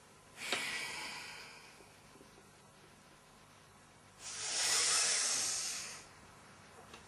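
A person taking deep, audible breaths: one starts sharply about half a second in and fades away, then a louder, longer breath comes about four seconds in and lasts about two seconds.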